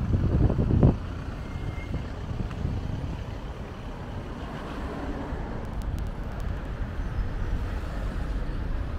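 City street traffic: a steady low rumble of cars and other vehicles on the avenue. It is louder for about the first second, then drops.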